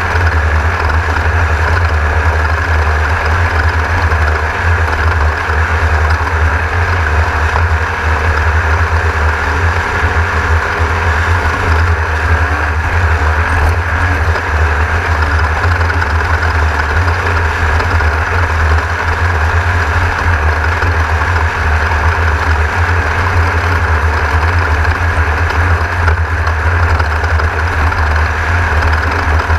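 1600-class off-road race car's air-cooled VW engine running steadily, heard from inside the car with a heavy low rumble.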